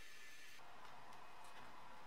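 Faint light clicks of hard plastic dashboard parts and an air vent being handled and fitted, over a low steady hiss.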